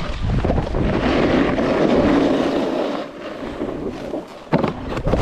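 Snowboard riding over snow: the board scraping and hissing along with wind buffeting the microphone, and two sharp knocks near the end.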